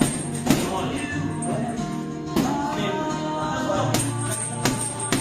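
Background music with singing, over which several sharp smacks land at uneven intervals.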